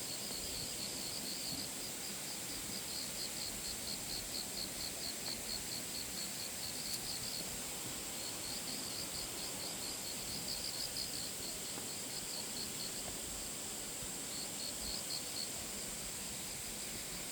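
Insect chirping in a rapid, even pulsed trill that comes in long runs with short pauses between them, over a steady high hiss.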